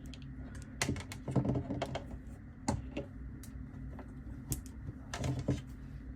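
Irregular light clicks and taps of small plastic doll parts and accessories being handled, in small clusters.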